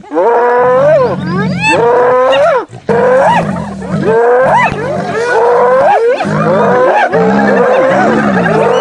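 A pack of hyenas at a kill: loud, overlapping yelping calls that rise and fall in pitch, one after another, over a continuous low growl.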